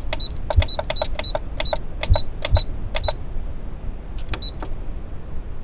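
Buttons on a Brother CS7205 computerized sewing machine's keypad being pressed in quick succession, each press a click followed by a short high beep, about eight in three seconds and one more a second later. Each press is keying in a stitch number.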